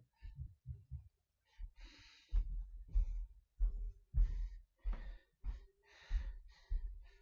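A woman breathing hard under exertion, with short forceful breaths about once a second and a dull low thump under most of them.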